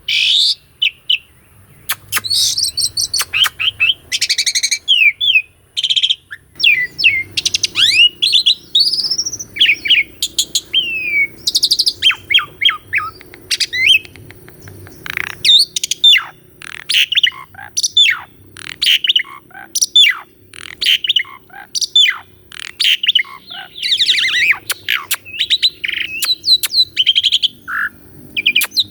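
Asian pied starling singing a long, fast, varied song: a run of whistles, rising and falling sweeps and harsh chirps with hardly a pause.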